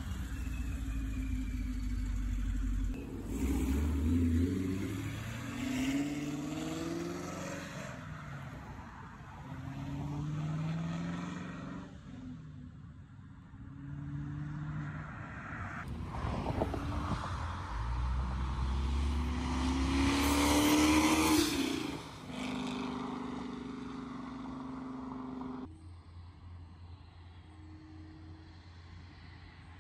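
A 2017 Camaro SS's 6.2-litre V8, fitted with a ProCharger D1X supercharger, accelerating again and again, its pitch climbing in a series of rising runs. The longest and loudest run, about two-thirds of the way through, carries a high whine at its peak. The engine then holds steady and drops quieter near the end.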